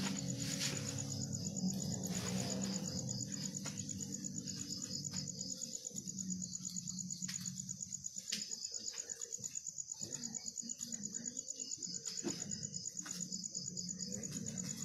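Crickets chirping in a fast, even trill, with a low hum during the first few seconds and a few sharp clicks.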